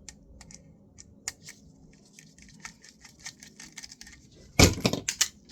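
Light clicks and ticks of a screwdriver working small screws out of a floppy drive's metal frame, then a loud clatter of small metal parts about four and a half seconds in.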